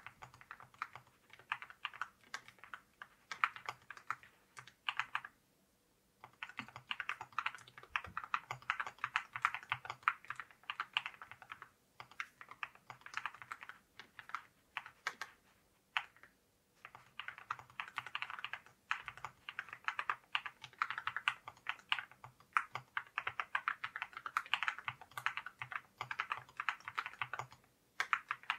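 Typing on a JRIS 65 mechanical keyboard fitted with ceramic keycaps: fast runs of key clacks, broken by brief pauses about five, twelve and sixteen seconds in.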